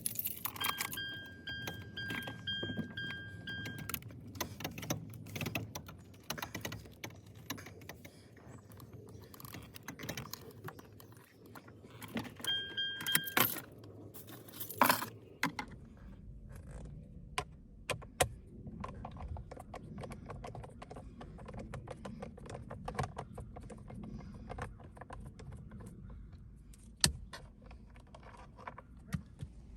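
Keys jangling amid many small clicks and knocks of hands handling metal and plastic parts. A pulsing electronic beep sounds for about three seconds near the start and briefly again around the middle.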